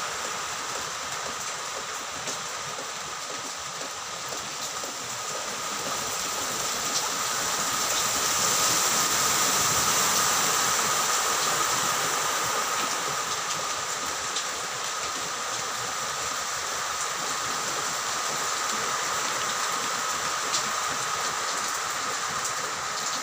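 Heavy rain pouring down in a steady rush, swelling louder for a few seconds about a third of the way through.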